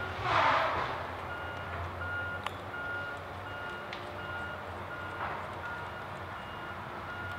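An electronic beeper repeating at an even pace over a low steady hum. A short rushing noise falls in pitch about a second in, and there are a couple of faint clicks.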